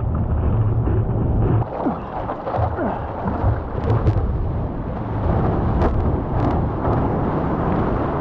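Ocean surf and wind rumbling against the microphone: a continuous, heavy low rumble with a hissing wash and a few scattered crackles.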